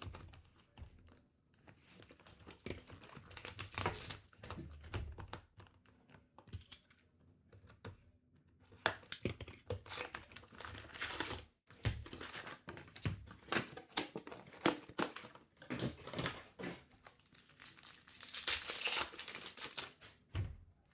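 A box of 2023-24 Upper Deck Ice hockey cards being torn open and its packs unwrapped: packaging crinkling and tearing in irregular bursts.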